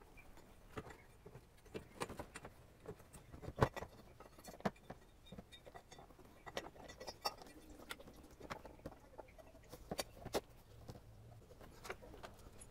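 Scattered faint clicks and knocks of metal and rubber parts being handled by hand in an engine bay, as a water inlet housing is pushed onto its O-ring and a coolant hose is wiggled into place. The sharpest knocks come about four seconds in and again near ten seconds.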